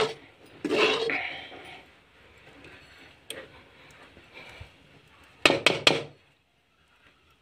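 Metal spoon scraping and clinking against a metal pan while stirring cooked poha (flattened rice). A handful of sharp clinks, with a quick run of three about five and a half seconds in.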